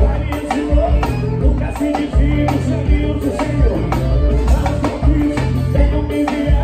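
Live band playing on stage: a steady drum beat over sustained bass notes and other instruments.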